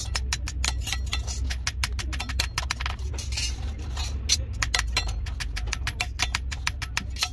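Metal hand tools clinking and tapping against car parts in a quick, irregular run of clicks, over a steady low hum.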